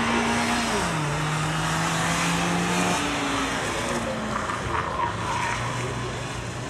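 Nissan March K11 hatchback racing through a gymkhana course: its engine runs hard, the note dropping in pitch about a second in and again a few seconds later, with tyre squeal and skidding as it turns tightly around the cones.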